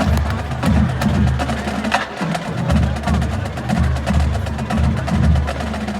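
Marching band drumline playing a cadence: a rapid run of sharp clicks over repeated low, pitched drum hits.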